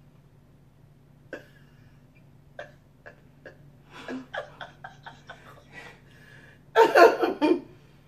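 A woman laughing under her breath: a few short sharp huffs, then a quick run of giggles, breaking into a loud burst of laughter about seven seconds in.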